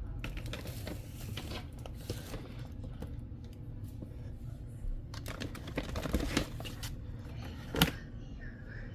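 Handling noises: rustling, crinkling and clicking, with one sharper knock near the end.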